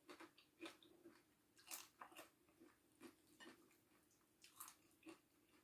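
Faint chewing of a person eating, a scattering of soft short mouth clicks.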